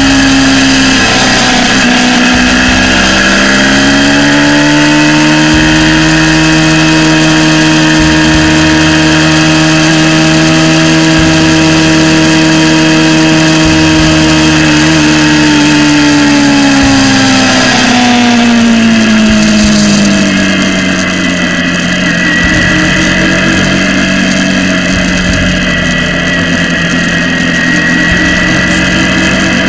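Motorcycle engine running at a steady cruise, heard from the rider's own bike with wind rushing over the camera microphone. About two-thirds of the way through, the engine note drops as the bike slows, then holds steady at the lower pitch.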